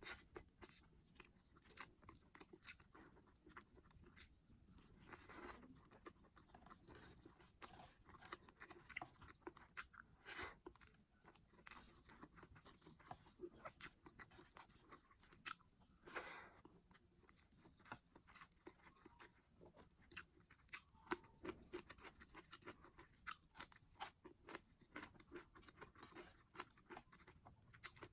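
A person chewing and biting food close to the microphone, with many wet mouth clicks and now and then a louder crunchy bite.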